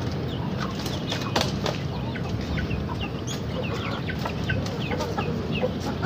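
Chickens clucking, with many short, high, falling chirps scattered throughout and a few light knocks.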